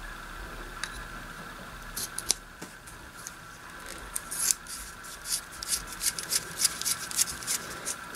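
Metal probe shell and knurled collar of an HP 410A vacuum-tube voltmeter probe being threaded back together by hand. From about two seconds in there is a run of quick, sharp metallic scraping clicks, several a second, over a faint steady whine.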